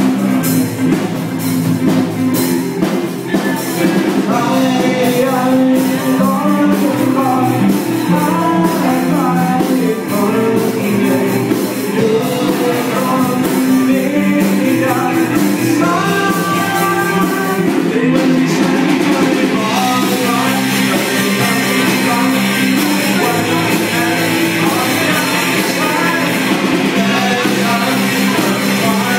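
Amateur rock band playing live: a boy sings into a microphone over electric guitar, bass guitar and a drum kit, all through small amplifiers.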